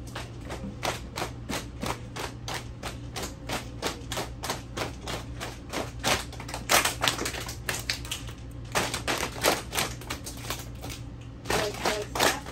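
A roomful of children clapping and patting their laps together in a steady rhythm, about four beats a second, following a clap-and-lap body-percussion pattern, with two brief pauses near the end.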